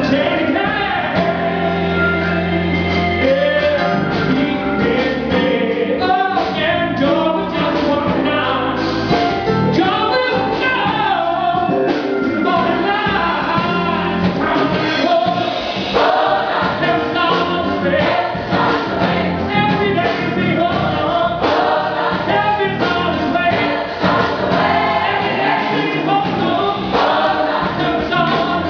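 Mixed gospel choir of women and men singing, accompanied by a live band with keyboard and guitar.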